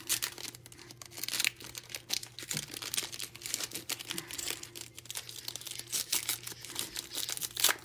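Trading-card pack wrappers crinkling and tearing as packs are handled and opened, in irregular rustles and snaps over a faint steady hum.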